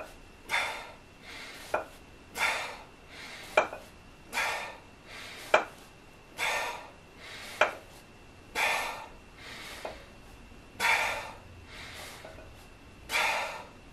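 A man breathing out hard about every two seconds, once per rep of a set of dumbbell lateral raises. Between several breaths the dumbbells clink sharply as they meet at the bottom of the rep.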